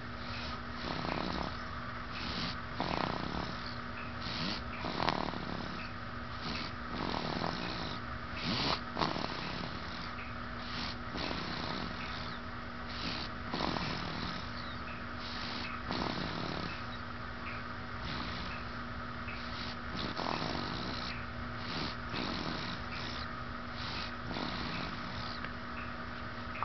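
Snoring: soft, noisy breaths repeating about every two seconds, over a steady background hum.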